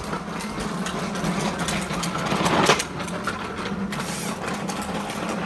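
Cordless drill running steadily as it bores a hole through a vinyl shutter into house siding, with a louder grinding surge a little past halfway.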